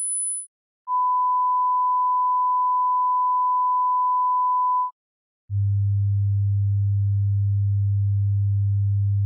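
Pure sine-wave test tones stepping down in pitch. A 10 kHz tone cuts off about half a second in. After a brief gap comes a steady 1 kHz tone for about four seconds, then a short gap and a 100 Hz tone that holds on.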